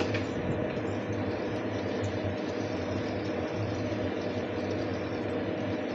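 Steady kitchen background noise: a constant low hum with an even hiss over it while a curry cooks on a gas stove.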